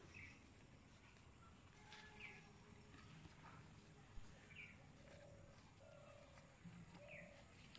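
Faint bird calls: short downward chirps about every two and a half seconds, over a quiet outdoor background.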